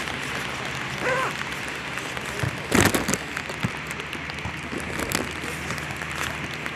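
Outdoor sound of an amateur football match: a steady hiss with a short distant call about a second in and a single sharp thump a little under three seconds in.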